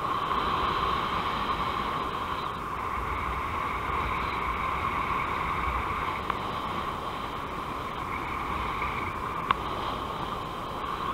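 Wind rushing over the camera's microphone in paragliding flight: a steady hiss with a low rumble, and a couple of faint clicks.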